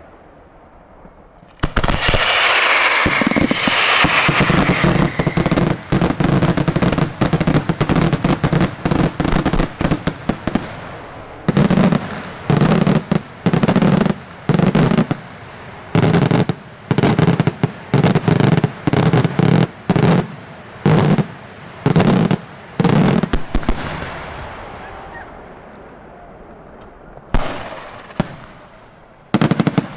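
Daytime fireworks display. After a brief lull, a dense rapid volley of shell bursts and crackling starts about two seconds in, with a hiss over its first seconds. Then come loud single bangs about once a second, each with an echoing decay, and a short run of bangs again near the end.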